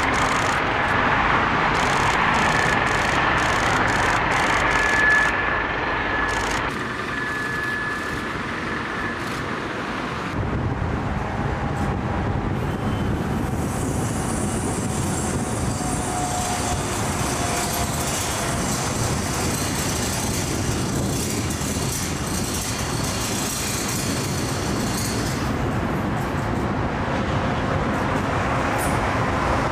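Cargo jets taxiing over a motorway bridge: steady jet-engine noise with a faint whine, mixed with the hum of motorway traffic below. The sound changes abruptly about seven seconds in and again about ten seconds in.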